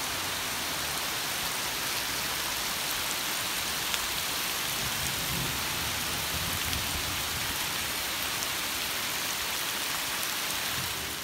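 Heavy tropical downpour in the Amazon rainforest: a steady, even hiss of hard rain falling on the jungle foliage.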